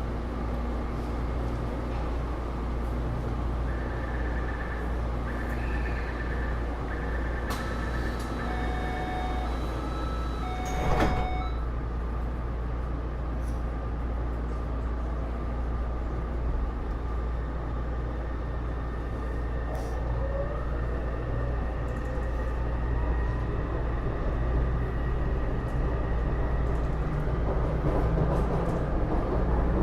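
Inside a Taipei Metro C301 metro car: a steady low rumble, a series of short electronic beeps and a sharp knock about eleven seconds in. From about twenty seconds the Bombardier IGBT-VVVF traction inverter gives a rising whine and the running noise grows louder as the train accelerates.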